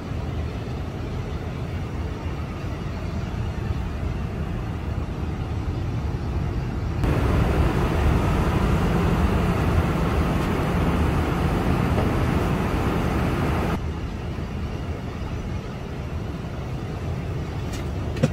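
Airliner cabin noise: a steady low rumble and rush of engines and air. For about seven seconds in the middle a louder, hissier rush comes in and cuts off just as suddenly. A couple of faint clicks come near the end.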